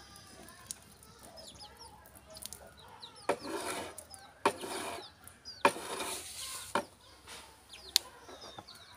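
Water poured from a mug into the plastic tank of a toy water gun in three splashy pours, about three seconds in, around four and a half seconds in, and near six seconds in. Small birds chirp faintly throughout.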